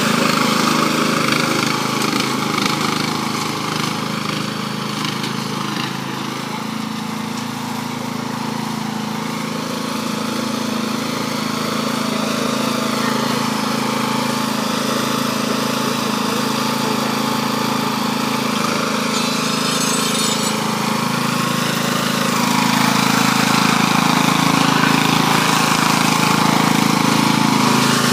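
Riding lawn tractor's engine running steadily while towing a lawn roller with a sod-cutting blade, growing louder for the last several seconds.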